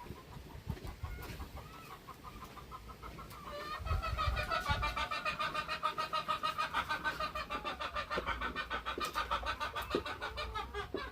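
A chicken clucking in a fast, even run of calls, about six a second, starting a few seconds in and going on for about seven seconds.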